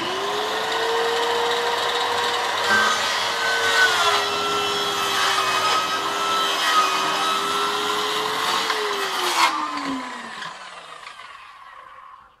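Zoodos 1200 W plunge track saw with a 165 mm blade, running at speed with its pitch dipping slightly under load while it saws. The motor is then switched off and winds down over about three seconds.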